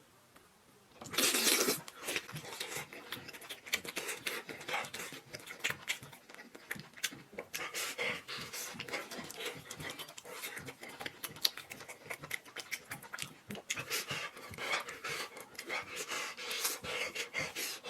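Close-miked eating sounds: rapid, irregular wet clicks and smacks of chewing, with a louder rush of noise about a second in.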